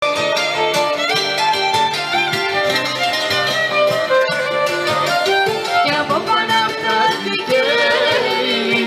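Live Greek Asia Minor folk band: a violin plays the melody over guitar accompaniment and a steady beat.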